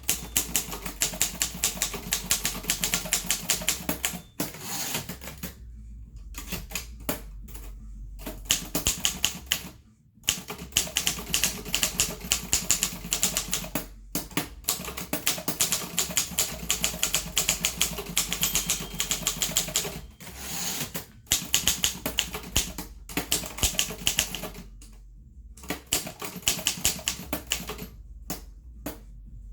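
Harris Visible No. 4 typewriter being typed on: quick runs of key strikes, broken by short pauses every few seconds.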